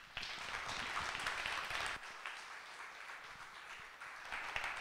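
Audience applauding, many hands clapping at once. It starts suddenly, is loudest for the first two seconds, eases a little, then swells again near the end.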